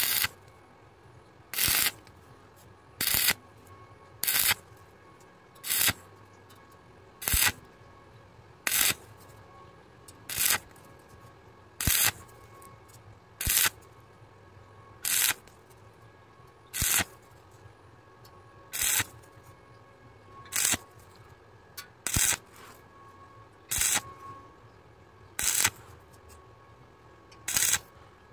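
Stick arc welding on thin rusty square steel tube, done intermittently: the electrode's arc crackles and hisses in short bursts of about a third of a second, repeated roughly every second and a half, with near quiet between. Each burst lays one ripple of the bead, which lets the thin metal cool between strikes so it does not burn through.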